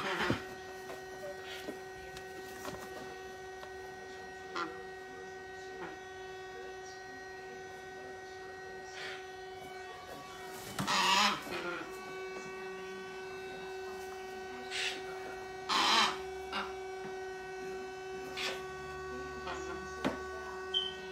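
Steady electrical hum with several fixed tones, with a few short harsh noisy bursts on top, the loudest about 11 and 16 seconds in.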